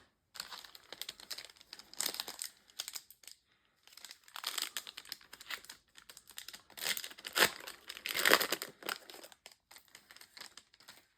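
A trading-card booster pack being torn open, its wrapper crinkling and rustling in irregular bursts, loudest a little past the middle.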